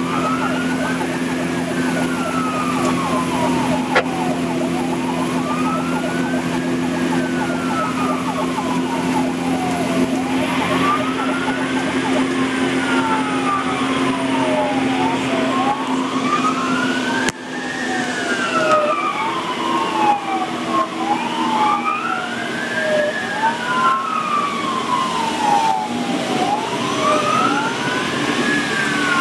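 Fire engine wail sirens rising and falling slowly, about one cycle every five to six seconds, heard from inside a fire engine's cab over the steady drone of its engine. From about halfway in, a second wailing siren overlaps out of step with the first.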